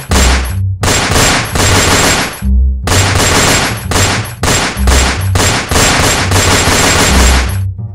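Gunfire sound effects: many pistol shots fired in rapid succession, with a brief pause about two and a half seconds in, laid over music with a plucked bass line.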